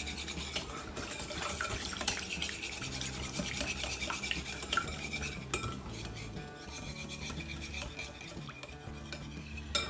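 Wire whisk beating a thin melted-butter mixture in a glazed ceramic bowl: a continuous run of quick clicks and scrapes as the wires strike the bowl.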